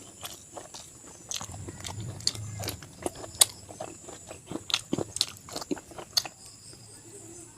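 A person eating close to the microphone: biting into and chewing pork and rice, with a quick run of sharp wet smacks and crunches that dies down about six seconds in.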